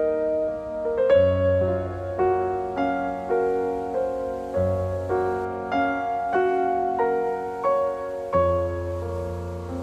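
Soft piano background music: a slow melody with a new note struck about every half second over sustained low bass notes.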